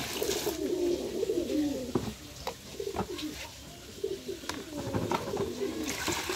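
Domestic pigeons cooing, one low wavering coo after another, with a few sharp clicks about two to three seconds in.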